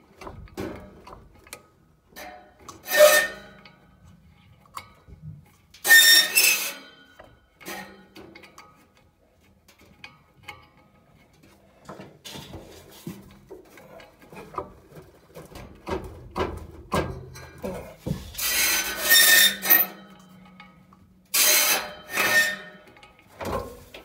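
Metal scraping and rubbing as a furnace's sheet-metal blower wheel is shifted and worked by hand on its motor shaft, its hub loose with the set screw finger loose. Small clicks and scrapes run throughout, with loud ringing scrapes about three and six seconds in and twice more near the end.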